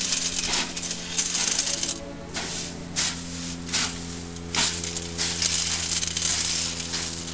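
Trigger spray bottle spritzing water in several short hissing bursts onto a hot stainless steel steamer-basket drum of freshly roasted coffee beans. The water evaporates as it hits the metal, cooling the beans to stop the roast. A steady low hum runs underneath.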